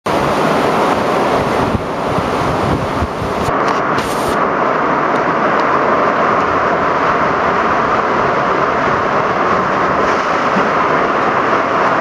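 Loud, steady rush of water on a river rapids raft ride, with a low, uneven rumble of air buffeting the microphone.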